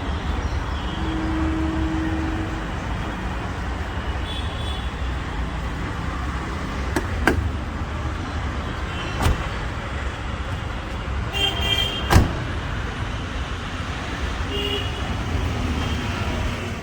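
Street traffic: a steady hum of passing vehicles with a low rumble, broken by several short sharp knocks, the loudest about twelve seconds in.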